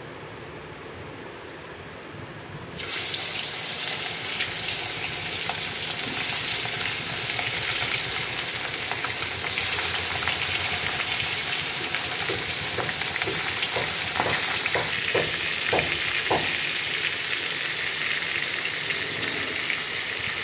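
Surmai fish pieces frying in hot mustard oil in a kadai: quiet at first, then a sudden loud sizzle about three seconds in as the fish goes into the oil, continuing steadily with a few sharp ticks partway through.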